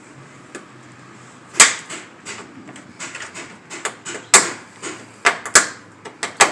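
Plastic push-pin retainer clips being worked loose and pried out: a series of sharp clicks and snaps, about half a dozen, the loudest about a second and a half in and again past four seconds.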